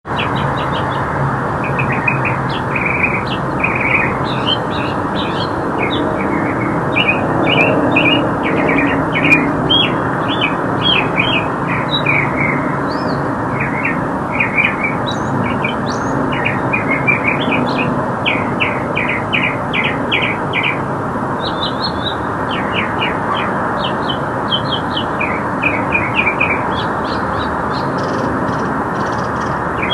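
Northern mockingbird singing a long, continuous string of varied high phrases, many notes repeated several times in quick succession before it switches to the next, over a steady background hiss.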